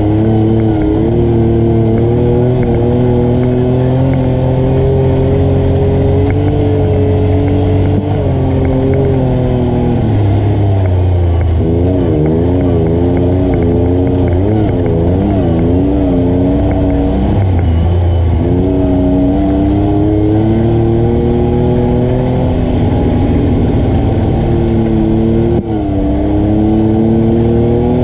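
ATV engine running as the machine is ridden, its pitch rising and falling with the throttle. For several seconds in the middle the pitch wavers quickly up and down, then it climbs steadily again.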